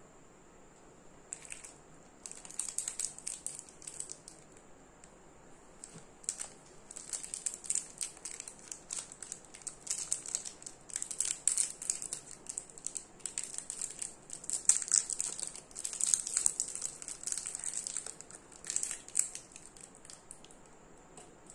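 Cellophane wrapper of an Alpenliebe hard candy crinkling and crackling as it is twisted open by hand. The crackles start about a second in and stop about two seconds before the end.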